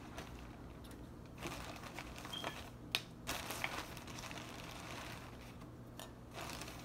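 Rummaging: rustling and crinkling as toiletry bottles are picked out of a shopping bag, with a few light clicks and knocks, the sharpest about three seconds in.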